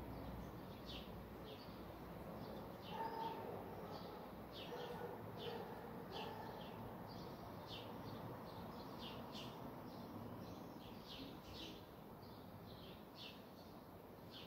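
Small birds chirping repeatedly in short, high chirps, faint and irregular, two or three a second, with a fainter, lower call between about three and six seconds in.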